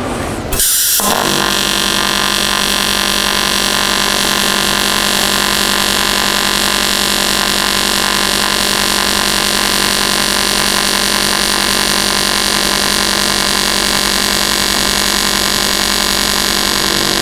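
AC TIG welding arc on aluminum from an AHP AlphaTIG 200, pulsed at 200 times a second: a steady, loud electric buzz that strikes up about a second in and holds unchanged.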